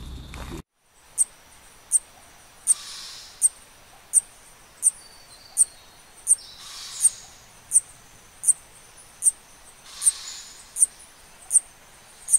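A short, high-pitched chirp repeats evenly, about once every three-quarters of a second, over soft outdoor ambience with gentle swells of hiss now and then. Before it, a brief rustle cuts off about half a second in.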